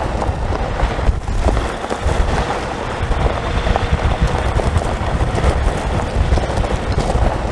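Wind rushing and buffeting the microphone, a continuous rough noise heaviest at the low end.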